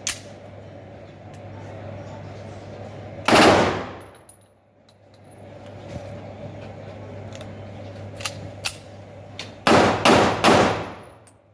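9mm Zigana Sports-pattern pistol being test-fired: one shot about three seconds in, then a quick string of shots near the end, each fading out over about half a second. Two light clicks come just before the final shots.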